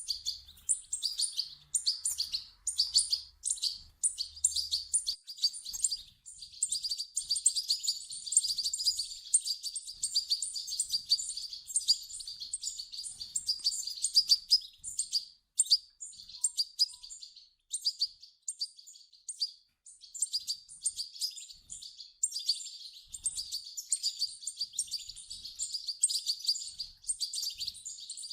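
European goldfinch chicks calling: runs of rapid, high-pitched chirps that keep going with only short breaks.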